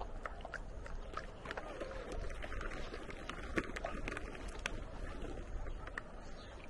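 Dogs chewing and licking jerky treats: irregular short mouth clicks and smacks, over a low rumble of wind on the microphone.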